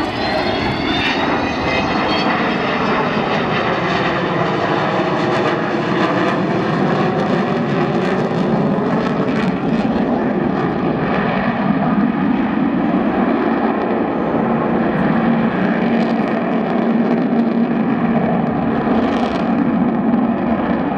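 Avro Vulcan XH558's four Rolls-Royce Olympus turbojets running loud as the delta-wing bomber flies past and climbs away, with tones that fall in pitch over the first few seconds, then settle into a steadier low drone.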